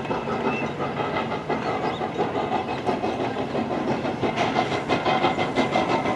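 Wooden passenger coaches rolling by on the rails, then the exhaust chuffs of a full-size Thomas the Tank Engine steam locomotive, about three a second, growing louder from about four seconds in as the engine draws near.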